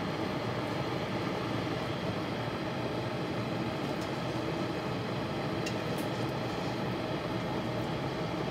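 Hamilton Beach glass electric kettle boiling a water-and-vinegar solution to loosen limescale: a steady, even noise of water at a full boil.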